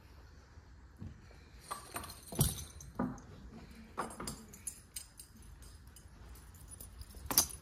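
Metal horse tack, the buckles and fittings of saddles and bridles, clinking and knocking in a few scattered strikes. The loudest comes about two and a half seconds in and another near the end.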